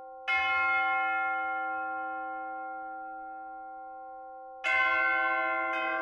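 Bell-like chimes struck twice, about four seconds apart. Each strike rings with several pitches at once and fades slowly.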